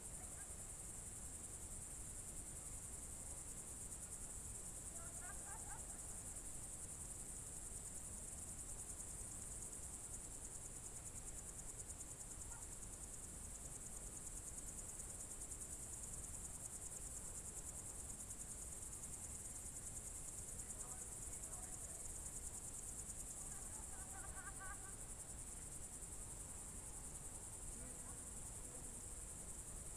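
A chorus of crickets trilling steadily and high-pitched without a break, with a few brief faint calls from some other animal now and then behind it.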